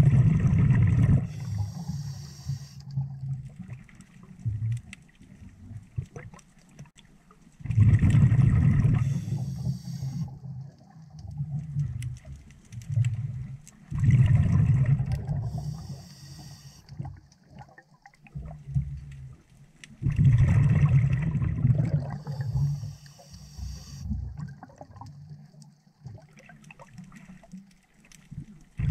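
Scuba diver breathing through a regulator underwater: a loud, low, bubbling rush of exhaled bubbles about every six to seven seconds, five times, with a fainter high hiss between the bursts.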